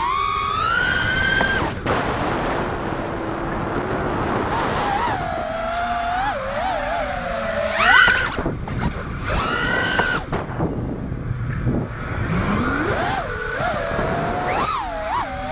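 Four-inch FPV freestyle quadcopter's brushless motors and propellers whining, the pitch climbing sharply and dropping back several times as the throttle is punched and cut. A rushing noise fills the gaps between.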